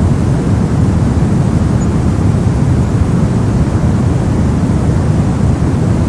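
Steady soft noise for baby sleep: an even, unbroken hiss with most of its weight down low, giving a deep, rumbling sound with no rhythm or change.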